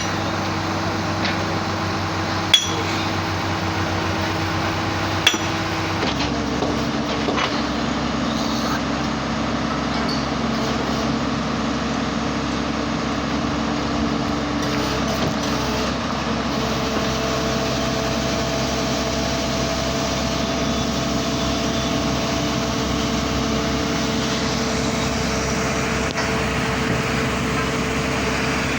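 Earth drilling machine's engine running steadily, its pitch shifting about six seconds in and again later. Two sharp metallic clinks sound in the first few seconds.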